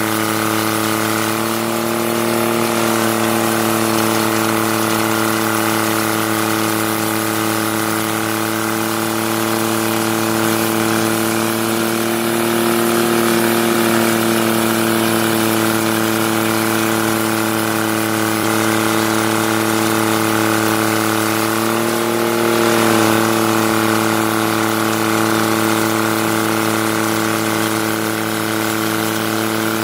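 Heavy machine's engine running steadily with a droning hum that dips and rises slightly in pitch a few times, most clearly a little over 20 seconds in.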